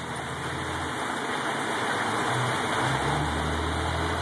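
Hail falling on pavement and parked cars: a dense, steady hiss that grows slowly louder. A car engine hums low underneath as a car drives along the road.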